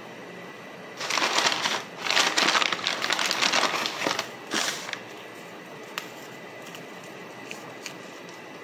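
Close-miked chewing of a mouthful of Argo corn starch: dense, crackly crunching that starts about a second in and fades out about five seconds in, followed by a single faint click.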